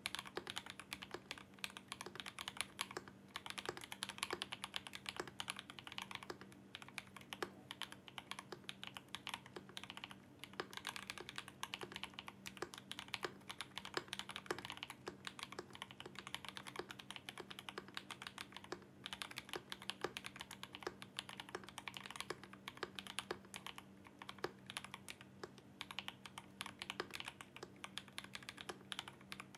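Fast, continuous typing on a 65% mechanical keyboard (RAMA M65-B) with lubed Yok Holy Panda tactile switches, a brass plate and GMK keycaps: a dense run of keystroke clicks and clacks, with brief pauses about 3, 10 and 19 seconds in.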